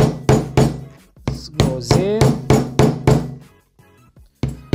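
Hammer tapping repeatedly on a PVC pipe, driving a crankshaft oil seal into the crankcase of a Vittorazi Moster paramotor engine: even, sharp blows about three a second, with a short pause near the end before the tapping resumes.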